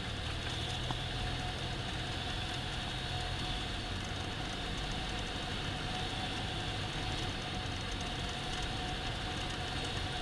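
Cessna 172M's four-cylinder piston engine and propeller droning steadily on final approach, heard from inside the cabin, with a thin steady high tone above the drone.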